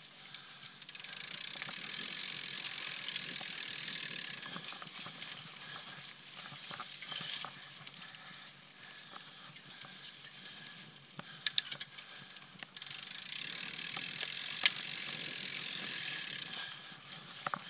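Mountain bike rear hub freewheeling with a fast ratcheting buzz while the bike coasts, in two stretches of a few seconds each. Between them it is quieter, with a few sharp clicks.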